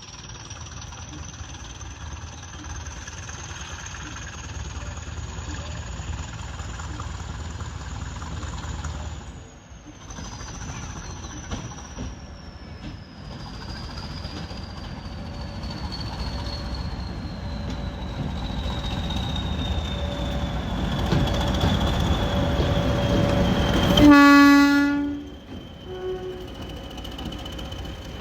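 Class 20 diesel locomotive's English Electric engine running with its high turbocharger whistle, the whistle sliding slowly down in pitch as the engine sound builds. A short, loud horn blast comes near the end, after which the engine sound drops away.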